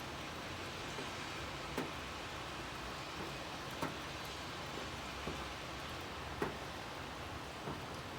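Steady rain falling, a soft even hiss with a low rumble underneath, while single heavier drops tap sharply every second or so, the loudest about two, four and six and a half seconds in.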